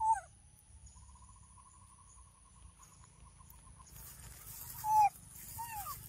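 Baby macaque giving short, high calls that drop in pitch: one at the start and two more close together near the end, over a faint steady insect drone.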